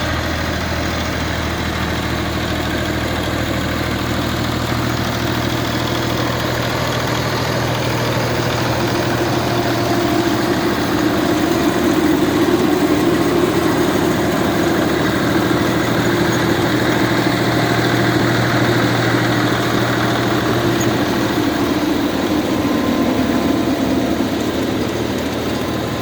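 Zetor 3545 tractor's diesel engine running steadily, with a band of machine noise that swells from about ten seconds in and eases near the end.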